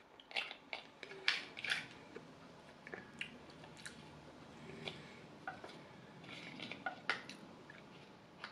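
Close-miked eating sounds: a fork pressing and scraping into a mini pie in its foil tin, with small crinkles and taps of the foil, and soft chewing. They come as scattered short clicks, busiest in the first two seconds.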